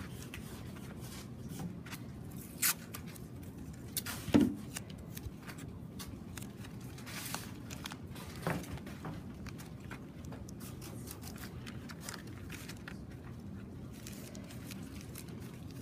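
Crumpled newspaper crinkling and masking tape being pulled and pressed on as hands handle a newspaper-and-tape armature, with three short sharp snaps, the loudest about four seconds in.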